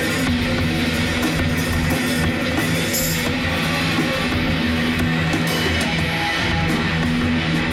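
Heavy rock jam: electric guitar played over a full drum kit, with a cymbal crash about three seconds in.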